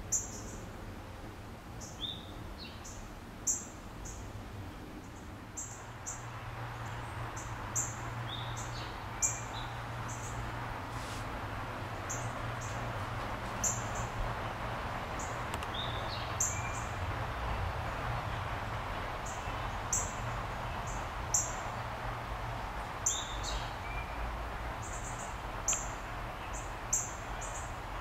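Short, high-pitched animal chirps every second or two, with a few brief downward whistles, over a steady outdoor hiss that grows a little louder about six seconds in.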